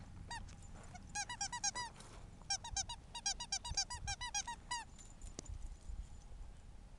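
Dog squeaky toy squeaked over and over in quick succession, about eight short squeaks a second, in a short run and then a longer one that stops a little before five seconds in.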